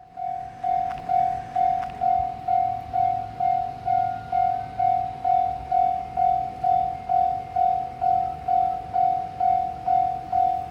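Japanese railway level-crossing warning bell ringing a single high clang about twice a second, steady and loud. It signals that the crossing is active and a train is approaching.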